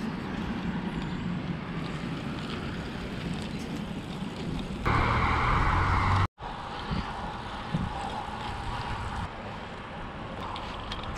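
Riding a bicycle: steady road and wind noise on the microphone. About five seconds in, a sudden much louder stretch of noise lasts just over a second and ends in a brief dropout to silence.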